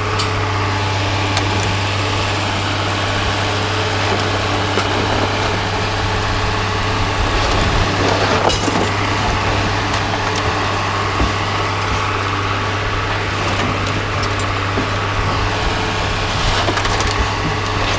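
A broom sweeping out a truck bed, its bristles scraping continuously, over the steady hum of an idling engine.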